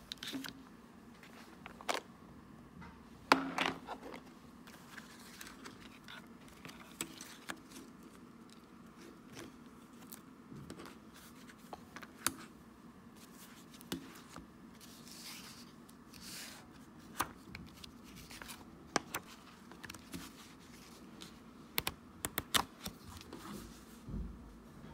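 Small items being handled and set down on a desk: scattered light clicks and taps, a sharper knock about three seconds in, and a brief rustle in the middle, over a low, steady room hum.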